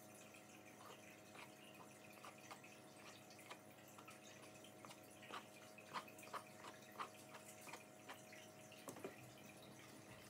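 Near silence: faint room tone with a steady low hum and scattered soft ticks, a few louder ones about five to seven seconds in.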